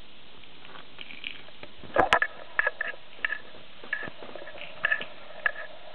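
Small plastic toy pieces being handled, clicking and tapping against each other in a scatter of short, sharp clicks, the loudest a pair about two seconds in.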